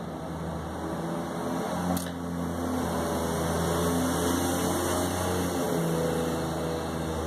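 A steady low mechanical hum that swells up over the first second and then holds, with one light click about two seconds in.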